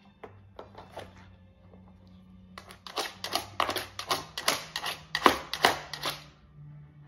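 Dog pawing rapidly at a hard plastic treat puzzle (Nina Ottosson by Outward Hound): a quick run of clattering clicks and knocks of claws and paw on plastic, with the bone pegs rattling. It starts about three seconds in and stops about a second before the end, after a few faint scattered clicks.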